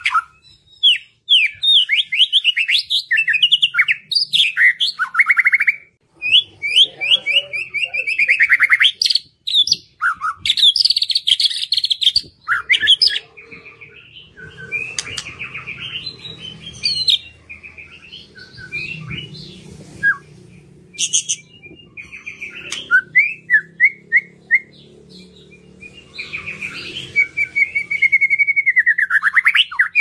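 White-rumped shama (murai batu) singing: long, varied phrases of rapid trills, whistles and chattering notes with short pauses between them. The song is densest in the first half, thins out in the middle, and picks up again with a long phrase near the end.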